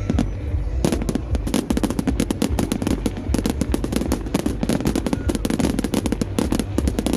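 Fireworks display going off in a rapid, continuous barrage of sharp cracks and bangs, starting about a second in, over a low rumble.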